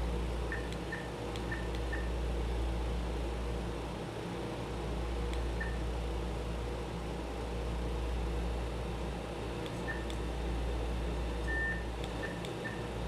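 Faint high electronic beeps sounding Morse code: four quick short beeps, a single short beep, another single beep, then one longer beep followed by two short ones. Under them runs a steady low electrical hum.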